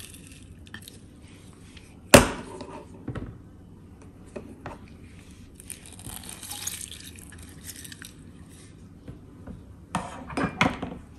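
Kitchenware clinking against a glass dish on a countertop: one sharp clink about two seconds in, a few lighter taps, then a quick run of clinks near the end.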